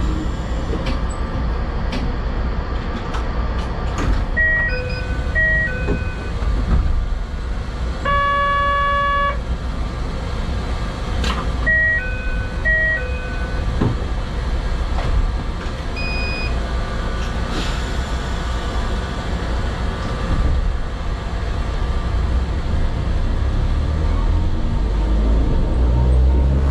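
Narrow-gauge electric railcar standing with a steady low hum, broken by short electronic chime tones: a two-note pattern twice and one held beep of about a second. Near the end the low rumble builds as the train pulls away.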